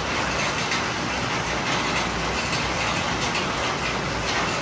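Steady rain falling and splashing on hard surfaces.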